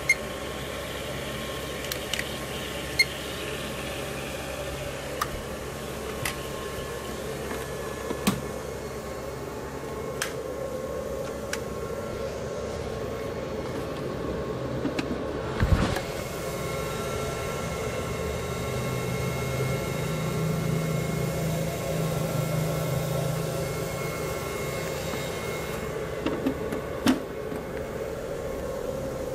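Steady electrical hum and fan noise of a homemade 24 V to 220 V sine-wave inverter running under the load of a rice cooker, with short handling clicks scattered through.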